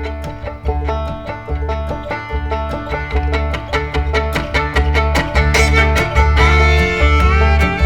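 Lively instrumental background music: quick plucked string notes over a steady, regular bass beat.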